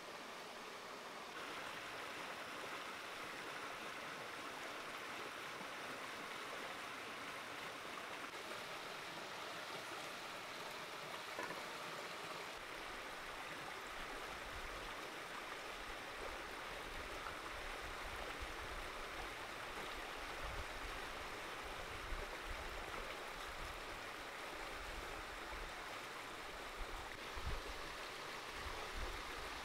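Shallow creek flowing steadily over rocks. Low, uneven rumbles come in about halfway through.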